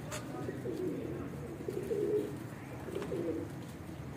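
Domestic high-flying pigeons cooing: about three low, warbling coo phrases, the loudest about halfway through.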